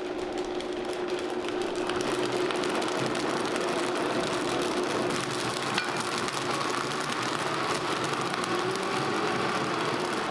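Vitamix blender motor running steadily, mixing chocolate chips into chocolate milk at the end of the blend.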